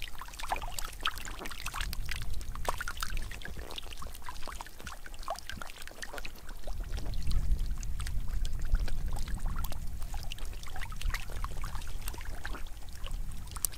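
Many eel-like fish thrashing in a shallow muddy puddle: a dense run of small irregular splashes, squelches and wet clicks. A low rumble swells from about seven to ten seconds in.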